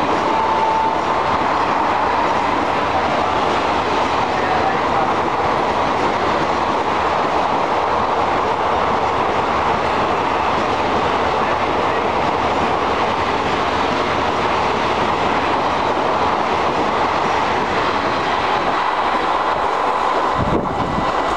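Passenger coaches of a superfast express train passing through a station at speed: a steady loud rush and rumble of wheels on the rails with clickety-clack.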